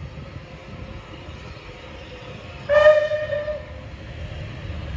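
Steam whistle of Bulleid West Country class locomotive 34092 City of Wells giving one short blast, under a second long, about two and a half seconds in, over the steady low rumble of the train.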